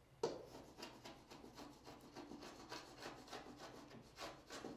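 Metal wallpaper scraper blade scraping soaked wallcovering and residual adhesive off a primed drywall sample, in a quick run of short scrapes, about five a second.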